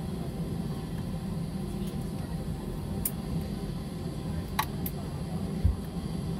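Cabin noise of an Airbus A320 taxiing: a steady low hum from the idling engines and cabin air, with a few light clicks around the middle.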